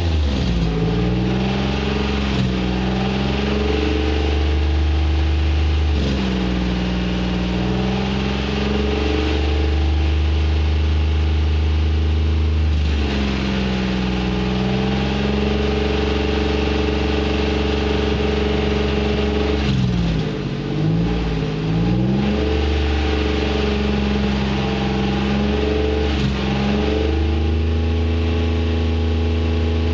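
Pontiac Aztek's 3.4-litre V6 running at raised revs with Seafoam cleaner in it, burning the cleaner off through the exhaust. The revs drop back and climb again several times, with a few quick blips about two-thirds of the way through.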